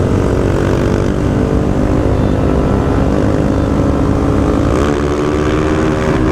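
Honda 160 single-cylinder four-stroke motorcycle engine running steadily at road speed under throttle, with wind on the microphone and a second motorcycle alongside. About five seconds in, the engine note dips briefly and climbs again.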